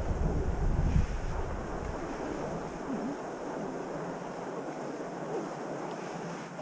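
Wind buffeting the microphone of a camera on a moving fat bike, over a steady hiss of fat tyres rolling on packed snow. The heavy low wind rumble drops away about two seconds in, leaving the even rolling hiss.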